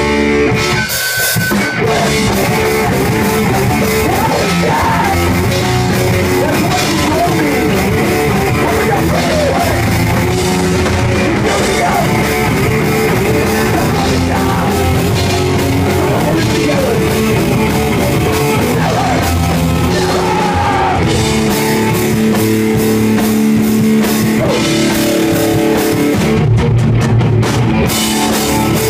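Live rock band playing loudly, with drums and guitar, with a brief drop about a second in.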